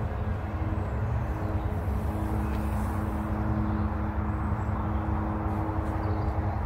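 A large engine running steadily, with a low rumble and a constant hum.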